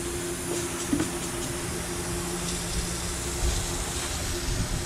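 Steady hiss of shop air escaping from a turbocharged engine's intake tract, pressurized to about 30 PSI through a tire valve for a boost leak test, over a steady low hum.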